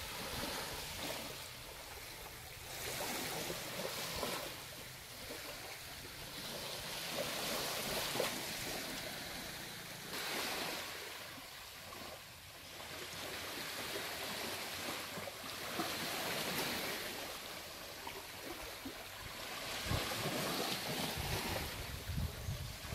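Small sea waves washing onto a sandy beach, the surf swelling and fading every few seconds, with wind rumbling on the microphone now and then.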